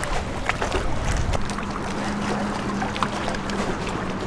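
Steady low hum of a boat motor on the lake, setting in about a second and a half in. It sits under wind rumble on the microphone and a scatter of light clicks.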